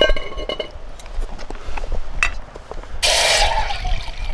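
A stainless steel pot clinks down onto a small wood-burning stove and rings briefly. About three seconds in, water from a vacuum flask starts pouring into the pot with a loud rushing splash.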